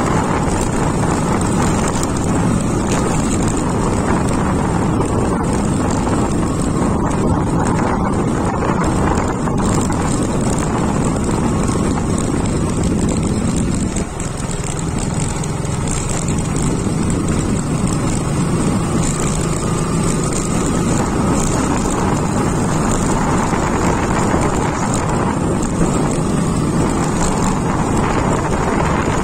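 Motorcycle engine running steadily on the move, with wind buffeting the microphone. The sound dips briefly about halfway through.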